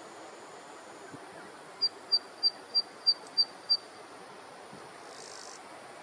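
Zitting cisticola singing: seven sharp, high notes evenly spaced at about three a second, starting about two seconds in, over a steady low hiss.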